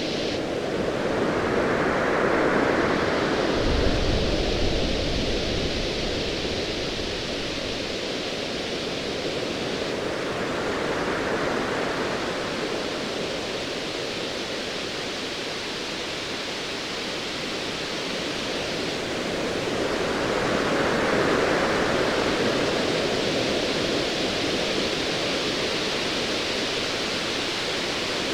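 Ocean waves surging and receding in slow swells, loudest a few seconds in and again about three-quarters through. A brief deep rumble of distant thunder comes about four seconds in.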